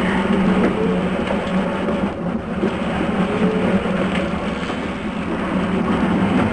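Steady drone of a fishing boat's engine running, with a constant rush of wind and water.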